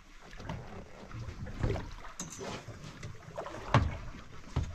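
Water slapping against the hull of a drifting fishing boat, with a few sharp knocks, the loudest about three-quarters of the way through and another just before the end.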